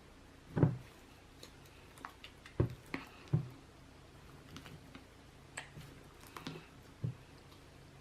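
Slime and its containers being handled: scattered soft clicks, taps and squishes, about eight over several seconds.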